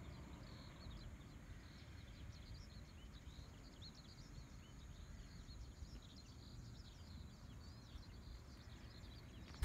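Faint outdoor ambience: many small bird chirps over a low, steady background rumble.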